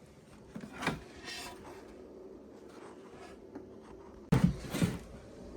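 Hand work on snowmobile parts: rubbing and scraping, a light knock about a second in, and a louder clatter of two knocks about four seconds in.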